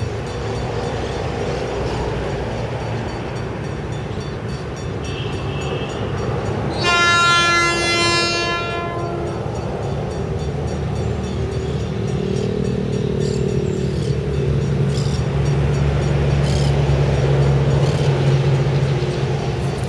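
ALCO RSD-16 diesel locomotive's V16 engine running as it approaches, hauling loaded mineral hopper cars, growing louder toward the end. About seven seconds in, its horn sounds once for about two seconds.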